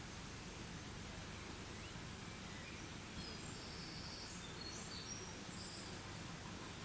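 Steady outdoor background noise with faint, high chirps of small birds calling in the distance, about three seconds in until near the end.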